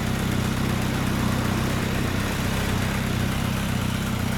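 Honda CB1300 Super Bol d'Or's inline-four engine idling steadily through a TSR hand-bent titanium full exhaust.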